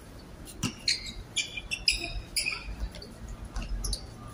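Basketball shoes squeaking on the court surface in a run of short, high chirps, with a dribbled basketball thudding once about half a second in.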